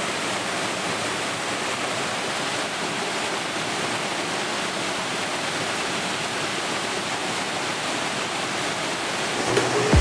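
Waterfall: white water rushing steadily down a cascade over bare rock slabs.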